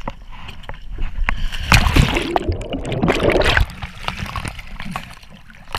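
A sit-on-top kayak capsizing with its paddler going into the water: a loud splash about two seconds in, lasting a couple of seconds, then water sloshing and gurgling around the head-mounted camera.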